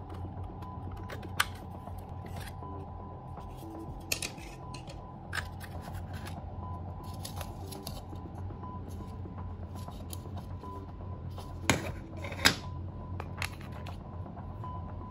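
Black plastic parts of a Soviet Kasseta reloadable Super 8 cartridge clicking and snapping as it is taken apart by hand, the two loudest snaps about twelve seconds in. A steady low hum lies underneath.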